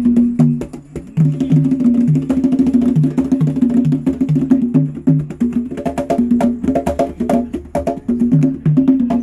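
Two drummers playing hide-headed hand drums together in a fast, steady rhythm. A repeated low note sounds about three times a second under sharp, higher slaps, with a brief drop in loudness about a second in.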